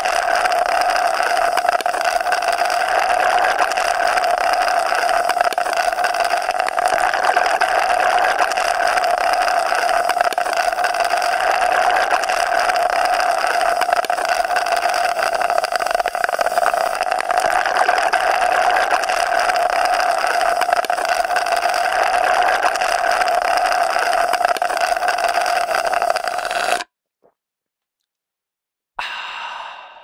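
A long, unbroken slurping sound that cuts off suddenly near the end, followed after a short silence by a brief burst that fades out.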